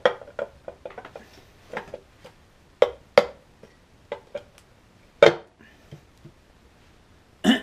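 Irregular light clicks and metallic taps as a Honda CB350's polished aluminium side cover is worked over the kickstarter shaft and seated against its gasket on the crankcase. A few sharper knocks come about three and five seconds in, and again near the end.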